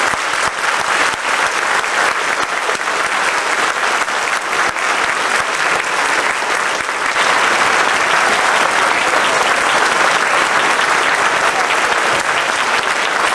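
Audience applauding steadily, swelling a little louder about halfway through.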